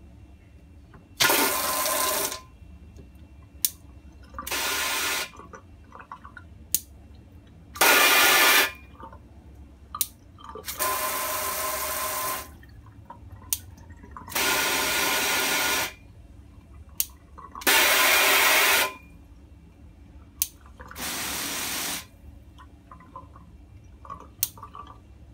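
Water from an expandable garden hose's pistol-grip spray nozzle hitting a stainless steel sink in seven short spurts, each a second or so long, as the trigger is squeezed and let go. Between spurts come small clicks as the nozzle's pattern dial is turned to the next spray setting, so the spurts differ in sound from one another.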